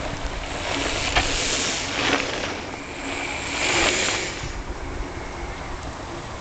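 Mountain bikes passing close by on a dirt trail, their tyres rolling and crunching over the gravelly dirt in two swells, about a second in and again around four seconds in. Wind rumbles on the microphone throughout.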